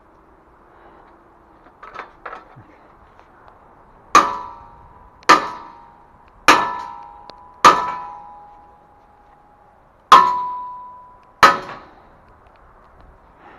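Hammer blows on a steel HAKI scaffold part, knocking a tight-fitting piece into place. Two light knocks come about two seconds in, then six loud, ringing metal clangs: four about a second apart, a pause, then two more.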